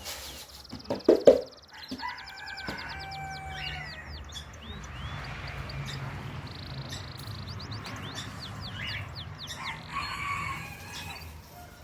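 Gouldian finches chirping, with many short high calls and a couple of rapid trills. A louder, lower bird call breaks in about a second in, and a low steady hum runs underneath through the middle.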